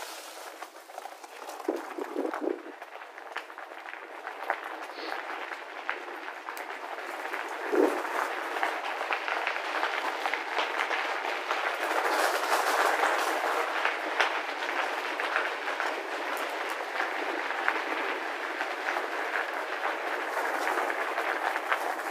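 Mountain bike tyres crunching over a gravel path, with steady rattling and clicking from the bike over the rough surface. It gets louder about midway, while riding through a tunnel.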